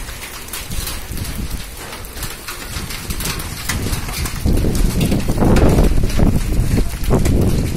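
Hail falling, small hailstones ticking as they strike the ground and nearby surfaces in many scattered sharp clicks. Wind gusts on the microphone, growing much louder about halfway through.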